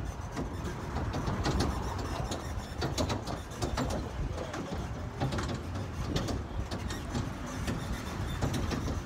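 A tourist road train running, heard from inside its open-sided carriage: a steady low rumble with frequent clicks and knocks as the carriage rattles.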